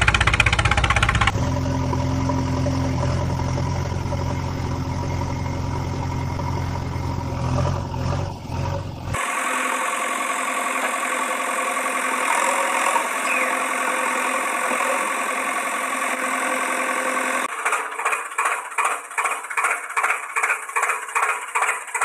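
Tractor engine sounds running steadily. About nine seconds in the sound changes to a thinner, higher engine note without the low rumble. In the last few seconds it turns into a rhythmic chugging of about three beats a second.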